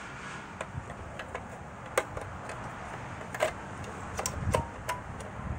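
Hard plastic clicks and knocks from a Farberware electric griddle's grease catcher being handled and fitted against the griddle body: about five sharp clicks, scattered, the last three close together near the end.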